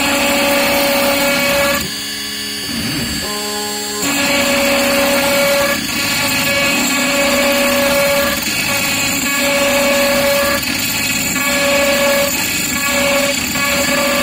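CNC router spindle with an end mill cutting into aluminium plate: a loud, dense cutting hiss with a whining tone that comes and goes every second or so as the tool runs its passes. The cut drops away for a couple of seconds about two seconds in, then resumes.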